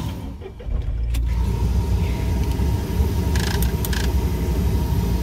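Volkswagen up!'s three-cylinder engine starting up about a second in, then idling steadily with a low rumble.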